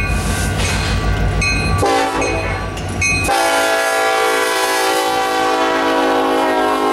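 Union Pacific diesel locomotive's air horn sounding one long, steady blast as the freight train comes past. It starts about two seconds in and grows louder about a second later. Before the horn, the train's deep rumble dominates.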